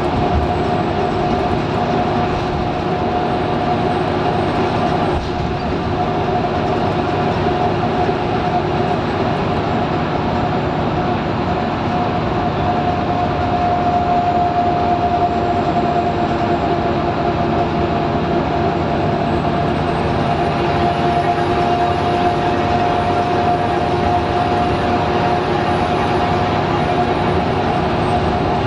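Cabin noise of a Scania L94UB Wright Solar single-deck bus under way: its Scania nine-litre five-cylinder diesel and drivetrain run at a steady drone, with a steady whine above it.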